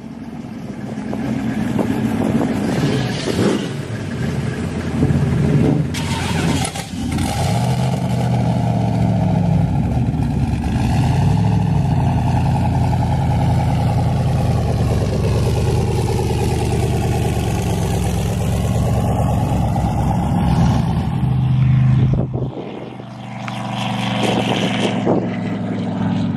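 Drag cars' engines running loud at the start line, revving up and down, with a few sharp cracks about six to seven seconds in. The engine sound dips briefly about 22 seconds in and then builds again as a car pulls away down the strip.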